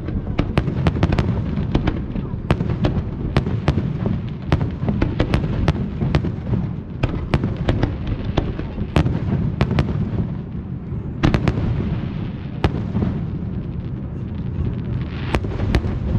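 Fireworks display: a rapid, irregular barrage of sharp bangs and cracks, several a second, over a steady low rumble.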